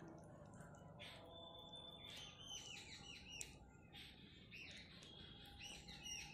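Small birds chirping faintly: quick runs of short, repeated, high notes about halfway through and again near the end.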